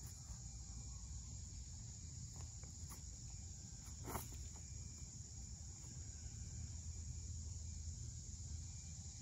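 A faint, steady high-pitched insect chorus over a low rumble, with a single sharp click about four seconds in.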